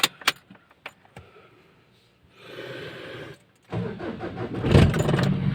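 Ford Everest engine being started: a few clicks, a short stretch of starter cranking, then the engine catches about four seconds in and runs, with a brief rev surge soon after. The engine is hard to start and runs rough, shaking at idle.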